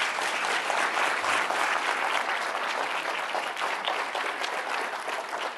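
Audience applauding: a dense, steady clapping that thins out near the end.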